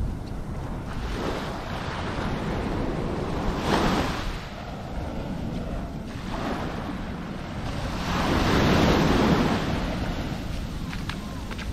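Small waves breaking and washing up the beach, rising and falling in two swells, the second bigger, over a steady rumble of wind on the microphone.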